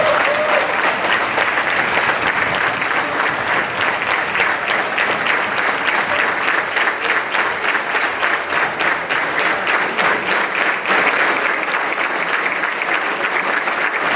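Large audience applauding steadily, a standing ovation that fills the hall.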